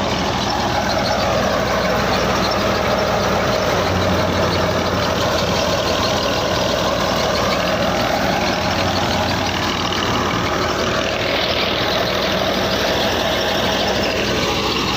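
Wheat threshing machine running steadily, a low engine drone under a dense rushing noise from the machine.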